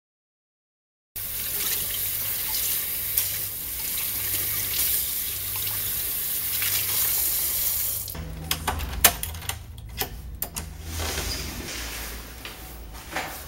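Kitchen tap running into a stainless steel sink while something is rinsed and rubbed under the stream by hand. About eight seconds in this stops and a bunch of keys jingles and clicks in a door lock.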